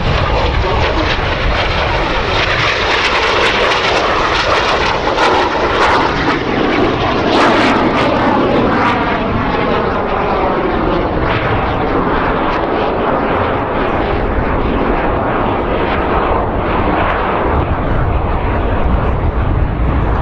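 Canadair CT-114 Tutor jets flying past, their turbojet engines making a loud, steady rush of jet noise. The tone sweeps noticeably between about 4 and 10 seconds in as aircraft pass.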